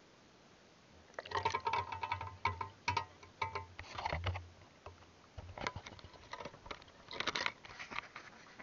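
Waterproof action camera pulled out of river water and handled: after a second of faint hiss, water splashing and dripping off its housing, with irregular knocks and rubbing against the case and a low handling rumble.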